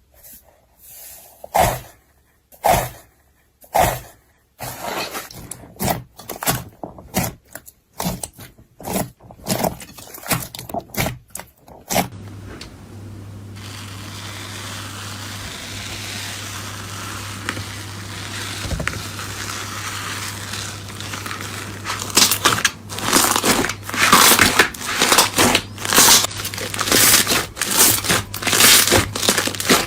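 Slime being squeezed and pressed by hand, giving a run of sharp crunches and crackles. About twelve seconds in, the sound changes to a softer, continuous crackling over a low hum. Loud crunches start again about ten seconds later.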